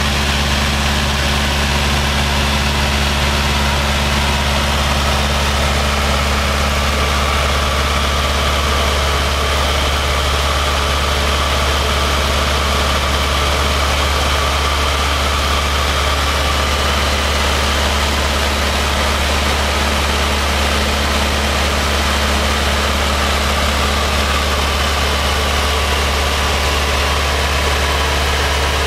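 Luscombe light airplane's engine and propeller running steadily in flight, a loud, even drone heard from inside the small cabin, with airflow hiss over it.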